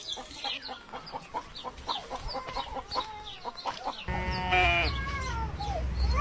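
Chickens clucking and cheeping, then from about four seconds in a steady low rumble and two drawn-out bleats from a goat or sheep, each falling in pitch.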